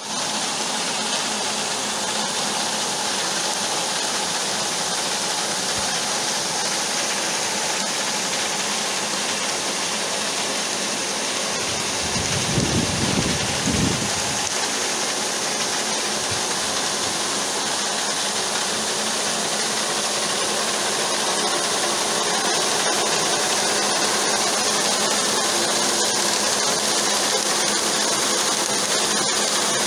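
Electric-motor-driven grain augers running, with a steady hiss of grain pouring through them into a transfer pit over a steady motor hum. A low rumble swells briefly about twelve seconds in.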